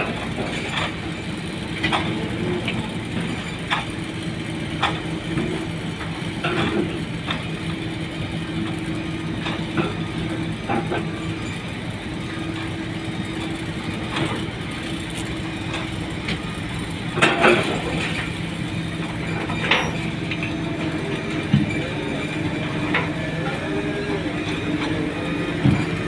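Diesel engine of a SANY crawler pile-driving rig running steadily at an even pitch while it hoists a concrete pile. Occasional sharp metallic clanks come through, the loudest a double clank about two-thirds of the way through.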